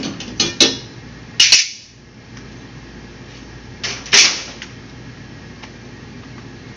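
A few sharp knocks and clacks in the first half, the loudest about a second and a half and four seconds in, over a steady low hum.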